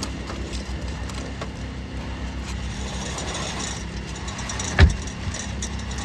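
Light scraping and clicking of asphalt roof shingles being worked loose by hand, over a steady low engine-like hum, with one dull knock a little before the end.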